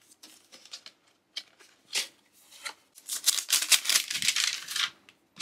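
Cardboard box and plastic case being handled during unboxing: scattered short scrapes and taps, then a denser rustling scrape about three seconds in that lasts nearly two seconds as the case comes out of the box.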